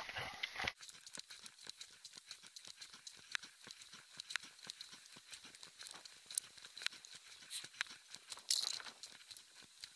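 Quick, irregular, faint clicking and light rattling from the camera wearer's movement along a concrete sidewalk, with a brief louder rustle about three-quarters of the way through. A louder stretch of the same kind of clatter cuts off abruptly under a second in.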